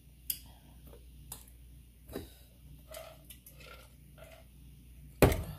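Small clicks and soft mouth noises of eating, then gulps from a metal tumbler, and a single loud thump near the end.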